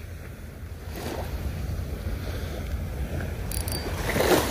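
Small waves washing onto a sandy shore, with wind buffeting the microphone.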